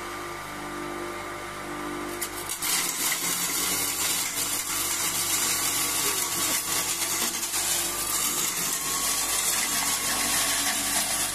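Electric feed crusher (drobilka) with its motor running at a steady hum. About two seconds in, baled straw is fed into it and it shreds the straw with a loud, continuous rushing and rattling.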